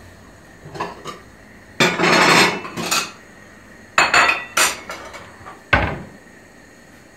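Kitchen utensils, pots and dishes being handled on a counter and stovetop: a string of separate clinks and knocks, with a longer rattle about two seconds in and a sharp knock with a thud near the end.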